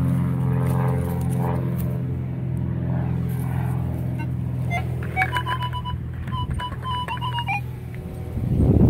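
Metal detector chirping a quick run of short, high, two-pitch beeps from about five seconds in, as the coil passes over a buried target in the dug hole, over a steady low drone that fades out. A rustle near the end.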